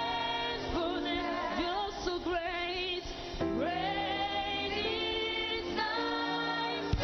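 Gospel worship music: singing with vibrato and gliding notes over steady held accompaniment, with a single sharp click near the end.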